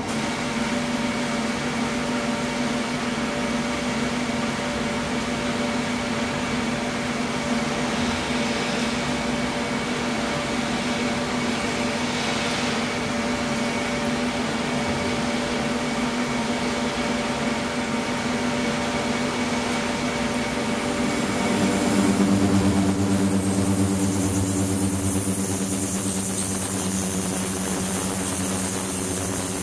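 Ultrasonic tank running: submerged stainless-steel transducer boxes drive cavitation in circulating water, giving a steady hum with several tones over a hiss. About 21 seconds in the sound grows louder, with a deeper hum and a high thin whine added.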